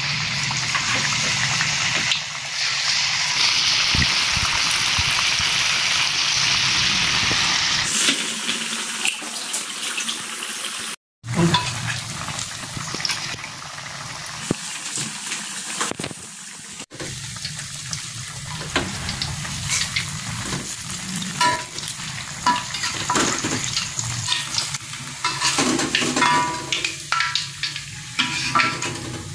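Battered banana pieces deep-frying in hot oil in a wok: a loud, steady sizzle for the first several seconds, then, after brief cut-outs, a quieter crackling sizzle. Later there are frequent clicks and scrapes of a metal spatula and skimmer against the wok.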